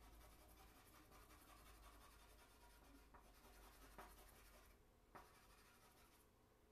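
Faint scratching of a charcoal stick stroked back and forth on paper, with two light ticks about four and five seconds in; the scratching thins out near the end.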